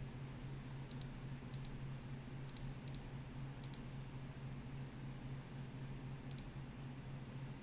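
Computer mouse clicking about six times at uneven intervals, each click a quick double snap of press and release, over a steady low electrical hum.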